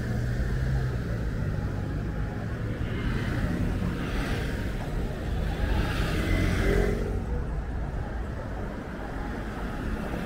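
City street traffic: a steady low rumble of motor vehicles, with cars passing a few seconds in.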